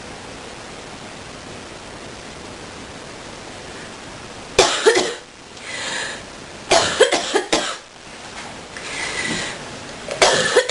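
A steady hiss, then about halfway in a deep coughing fit breaks out: clusters of harsh coughs, with drawn breaths between them.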